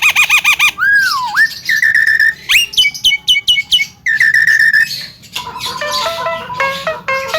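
Javan myna (jalak kebo) singing a fast medley of varied whistles: a warbling trill, a falling swoop, held high whistles and quick rising notes, then a repeating stepped phrase near the end.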